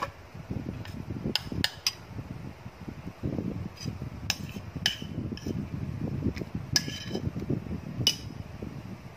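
A spoon clinking and scraping against dishes as a thick cream and corn flake mixture is stirred and scooped, with about a dozen sharp clinks scattered over low, dull handling noise.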